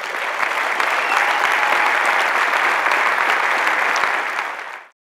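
Auditorium audience applauding, swelling in the first second and holding steady, then cut off abruptly near the end.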